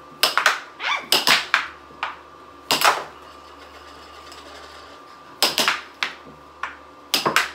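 Tabletop air hockey in play: the plastic puck clacks sharply off the hand mallets and the table's side rails in quick clusters of hits, with a lull of about two seconds in the middle. A steady faint hum runs underneath.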